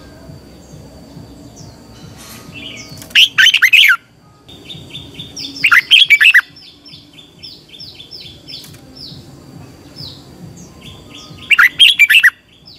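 Red-whiskered bulbul singing three loud, short warbled phrases, spaced a few seconds apart, with faint rapid repeated chirps between them.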